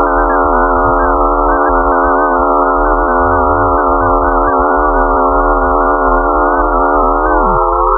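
Planet 'sound' made from space data: a dense electronic drone of many steady tones sounding together, the higher ones wavering slightly. Near the end a few of the tones glide down in pitch.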